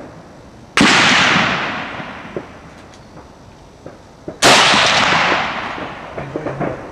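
Two shots from a 7x57 mm Mauser 93/95 bolt-action, about three and a half seconds apart. Each is a sharp crack followed by a long rolling echo that dies away over a second or two.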